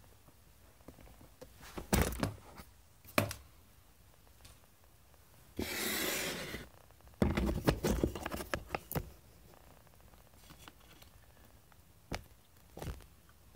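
Handling sounds on a tabletop: scattered knocks and clicks of wooden blocks and tools being set down, with a scrape lasting about a second, about six seconds in, followed by a flurry of knocks.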